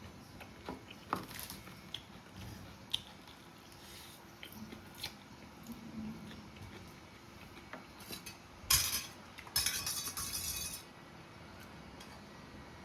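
Cutlery clinking against a bowl while eating noodles, with scattered light clicks and a louder stretch of dense noise about nine to eleven seconds in.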